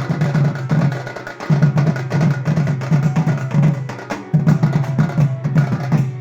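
Band playing a song: fast, dense drumming over a steady low bass line. The music stops abruptly near the end, leaving a few notes ringing and fading away.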